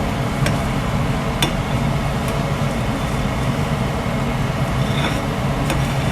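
Steady hum of a kitchen appliance motor, with a few light clicks of a utensil against the pot as the hot agar syrup is stirred.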